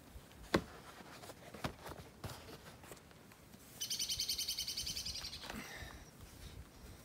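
A bird gives a rapid rattling call of many quick, high repeated notes lasting about a second and a half, just past the middle. Before it come a few soft clicks and knocks, the sharpest about half a second in.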